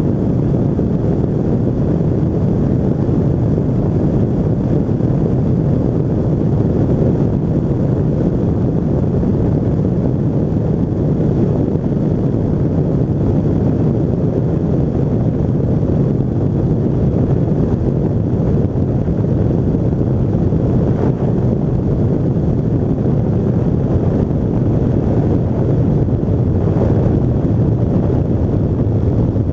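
Rotax 582 two-stroke engine of a Pegasus Quantum flexwing microlight running steadily, mixed with wind rushing over the microphone.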